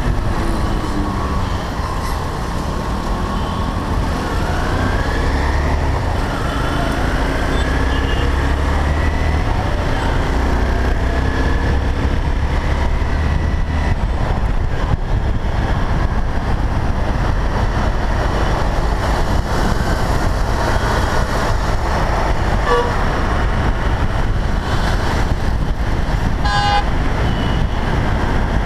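Motorcycle riding through dense city traffic: engine and wind noise make a steady low rumble, the engine's pitch falling as it slows at the start. Vehicle horns toot briefly twice in the last few seconds, the second a quick run of beeps.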